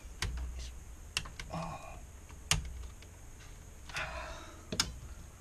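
A handful of sharp clicks and taps from hand tools and metal parts on an LCD monitor's opened metal chassis, the loudest about two and a half seconds in, with a couple of brief scrapes, as a very tight screw on the backlight inverter board is worked at.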